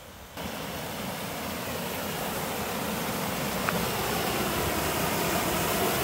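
Waterfall: white water rushing over rocks, a steady wash of noise that grows gradually louder.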